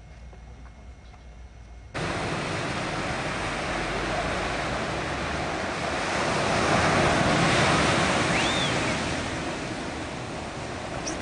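Surf breaking and washing up a sandy beach: a loud, steady rush of waves that starts abruptly about two seconds in and swells through the middle.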